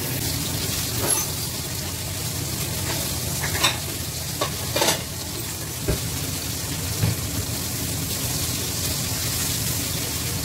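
Food sizzling in hot oil in a frying pan on a gas stove: a steady hiss, with a few short clicks and knocks in the first half as the pieces are turned in the pan.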